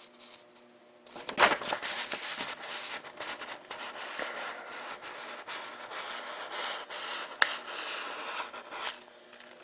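Handling noise: rustling and scraping with many small clicks, starting about a second in, and one sharper click about seven seconds in.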